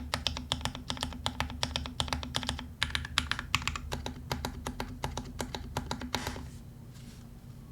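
Fast typing on a custom MC65 mechanical keyboard with lubed Cream Soda switches in a top-mounted carbon fiber plate and GMK keycaps: a quick, dense run of key clicks that stops about six and a half seconds in.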